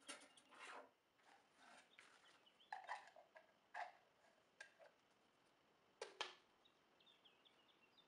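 Hands rustling plastic packaging and handling clear plastic feeder and drinker parts: irregular crinkles and light plastic clicks, loudest at the start, around three to four seconds in and about six seconds in.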